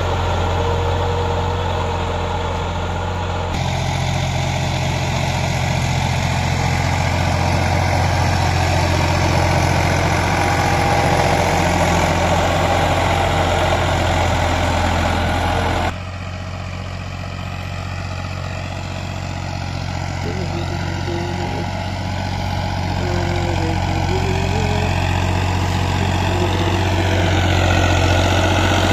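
Fiat 480 tractor's three-cylinder diesel engine running steadily under load while it levels soil with a blade. The drone shifts abruptly twice, about a third of the way in and again about halfway.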